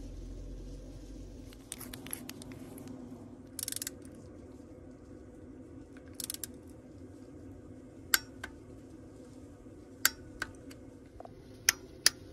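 Ratchet wrench on an extension and spark plug socket, working a spark plug in an Ecotec engine's cylinder head. There are two short bursts of ratchet clicking, then a few single sharp clicks near the end, over a steady low hum.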